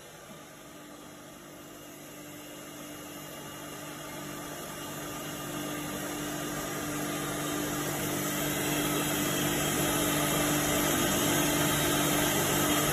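A four-head CNC wood router runs with a steady machine hum and a low, constant tone, growing steadily louder.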